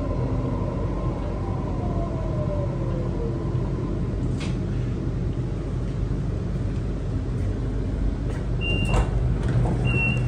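Inside a Sydney Trains electric suburban train as it pulls into a station: a steady low hum and rumble, with a falling motor whine in the first few seconds as it slows. Near the end come two short high beeps with clicks as the sliding doors open.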